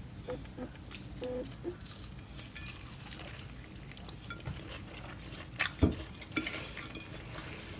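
Scattered light clinks and clatter of dishes and cutlery being handled, with two sharper knocks a little before six seconds in.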